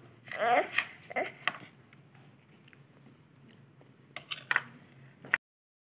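A knife scraping and clicking against a serving dish as squares of barfi are lifted out, in scattered taps about a second in and again near the end. A brief wordless voice sound comes about half a second in, and the sound cuts off abruptly shortly before the end.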